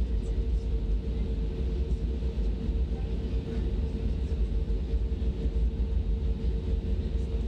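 Airbus A320 taxiing, heard from the cabin over the wing: the steady low rumble of the engines and wheels with a constant hum.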